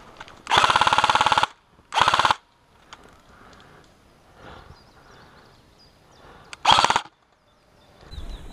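Airsoft replica rifle firing on full auto in quick strings of shots: a burst of about a second, a short burst about two seconds in, and another short burst near the end.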